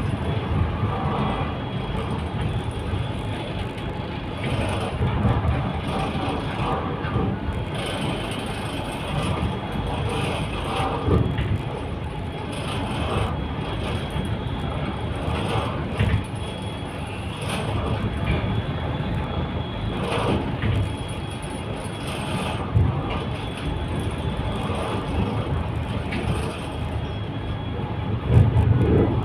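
Small tugboat's diesel engine running steadily under way, a low mechanical drone with louder surges every few seconds.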